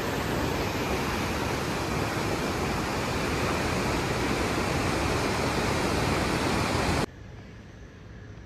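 Fast white-water river (the Parvati in spate) rushing, a loud, steady wash of noise that cuts off suddenly about seven seconds in, leaving a much quieter steady background.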